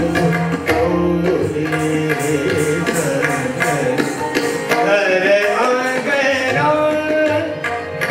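Hindustani classical music accompanying Kathak dance: tabla strokes under a sustained, gliding melody on a sarangi.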